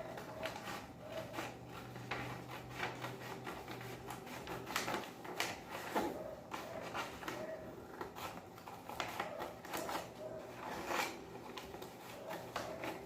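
Cardboard being cut by hand into strips, a run of short, irregular snips and scraping sounds.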